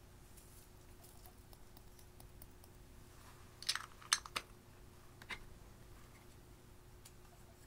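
Light clicks and taps of small plastic makeup containers being handled, with a quick cluster of a few sharp clicks about four seconds in and a single click a second later.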